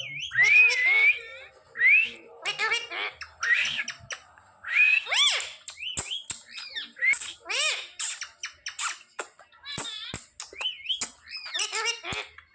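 Pet parrot squawking and chattering in a quick string of short calls, many of them rising and falling in pitch, with sharp clicks in between.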